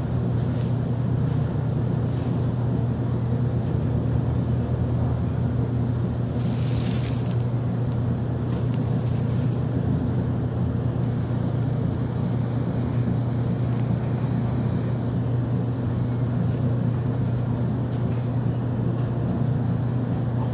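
Steady low hum of a running machine or motor, with a brief hiss about seven seconds in.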